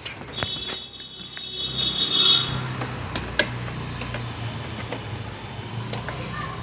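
A high electronic beep lasting about two seconds, overlapped and followed by a steady low mechanical hum.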